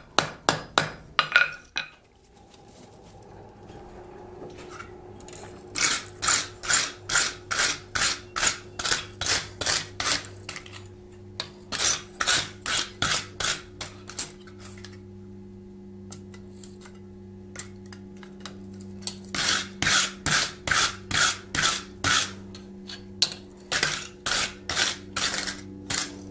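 A few hammer blows on the anvil, then a stiff wire brush with a wooden block handle scrubbed back and forth over the steel anvil face in runs of quick strokes, about two or three a second, with pauses between the runs. A steady low hum runs underneath from about two seconds in.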